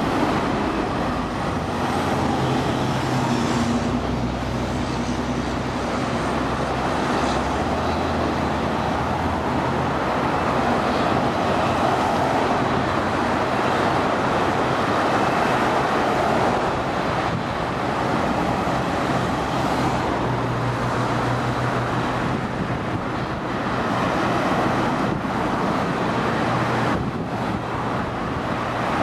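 AgustaWestland AW139 twin-turboshaft helicopter running on the ground with its main and tail rotors turning, ahead of take-off. Its steady turbine and rotor noise carries a low hum that swells and fades.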